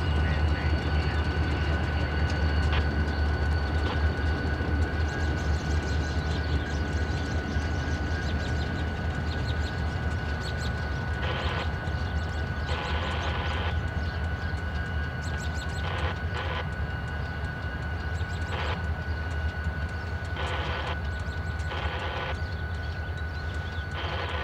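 Diesel-hauled freight train rolling in: a steady low locomotive engine rumble with a thin steady high whine over it. Faint ticks come in the first half, and a series of short bursts of noise in the second half.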